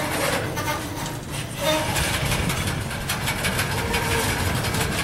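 Freight train's boxcars rolling past close by: a steady rumble with a rapid clatter of steel wheels on the rails and a few brief squeals.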